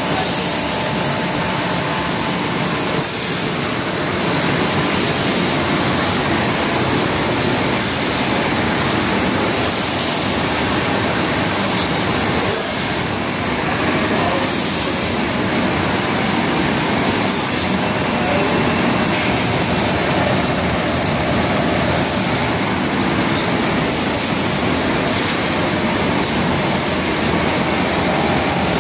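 Automatic sheet-fed film laminating machine running: a loud, steady mechanical drone with air hiss. The higher hiss swells briefly every few seconds.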